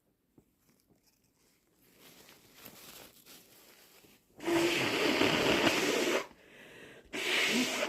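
A sick person blowing a congested nose hard: after a few seconds of soft rustling, one long forceful blow of almost two seconds, then a second blow starting near the end.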